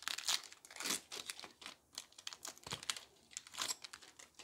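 A Pokémon card booster pack wrapper being torn open and crinkled by hand: irregular crackling and tearing that dies away near the end.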